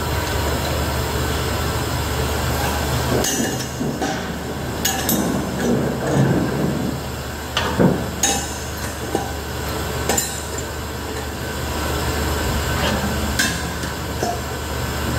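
Steady low machine hum of a nitrogen cylinder-filling setup during charging, with scattered metallic clinks and knocks from the gas cylinders and their fittings, the sharpest about eight seconds in.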